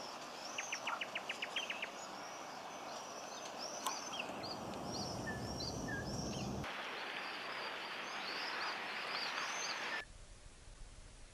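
Birds calling over steady outdoor ambience: a quick rattle of about nine short notes, then a high chirping call repeated about twice a second. The ambience drops suddenly to quiet near the end.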